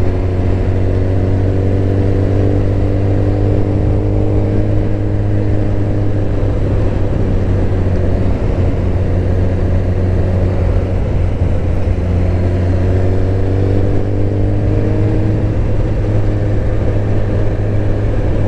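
Suzuki GSX-R1000 K7's inline-four engine running steadily while the motorcycle is ridden. The note sags slowly over the first several seconds and rises again a little after halfway through.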